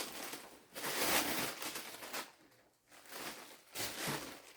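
Packaging rustling and crinkling in several bursts as an item is handled and unwrapped, with a short pause just past the middle.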